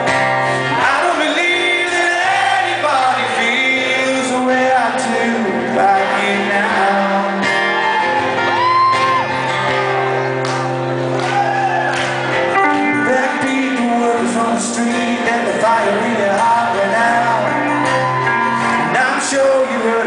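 Live rock band performance with singing, shouts and whoops from the audience, heard in a large hall.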